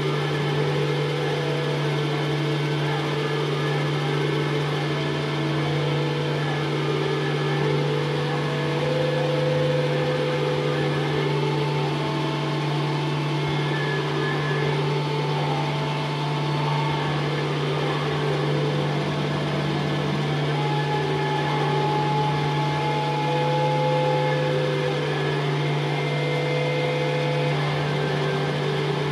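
Experimental drone music: a steady low hum underneath, with long held higher tones that come and go over it.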